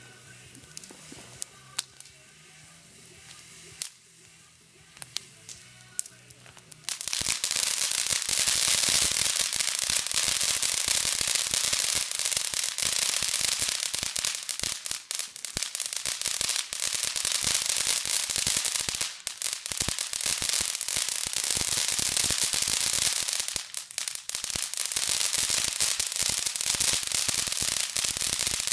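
Ground firework fountain: for the first seven seconds it gives a few scattered pops over a soft fizz. Then it suddenly breaks into a loud, continuous crackling hiss of dense sparks, with a couple of brief dips.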